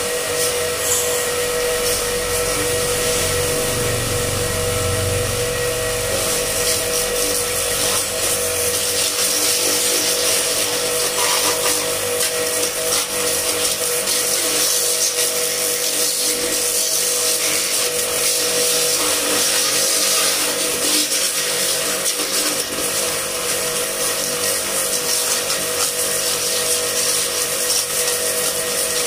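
Starq W3A electric pressure washer running steadily: a constant hum from its motor and pump together with the hiss of the high-pressure water jet. A deeper rumble sits under it for the first eight seconds or so.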